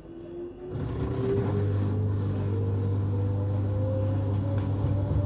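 LG washing machine starting a spin: a few quiet moments, then about a second in the motor comes on with a low hum and a whine that rises steadily in pitch as the drum speeds up. This is the start of one of the machine's shaking episodes.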